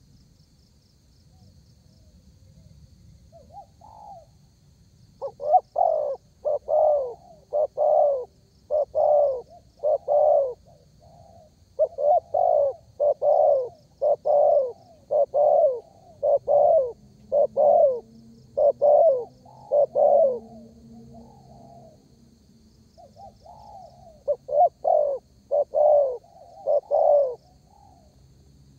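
Spotted dove (derkuku) cooing: a long, even series of short coos at about one a second, with a break of a couple of seconds about two-thirds of the way through before the cooing resumes.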